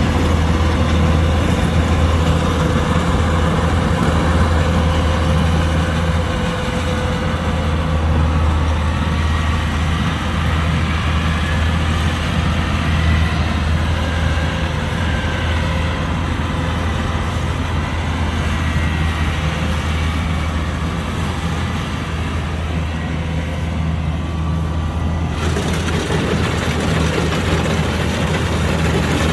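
Kubota combine harvester running steadily: a deep engine hum with a steady whine from its running machinery. The sound changes abruptly near the end.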